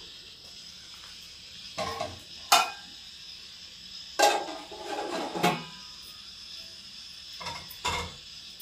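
A metal lid and a metal spoon knock and clatter against an aluminium cooking pot as the lid is set on: two clinks, then a longer ringing clatter midway, then two more knocks near the end. A faint steady hiss runs underneath.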